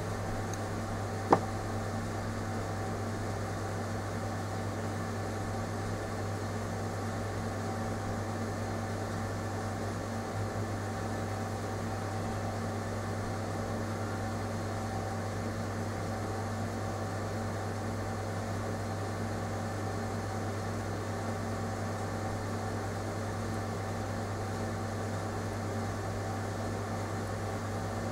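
Steady low machine hum with a single sharp click about a second in.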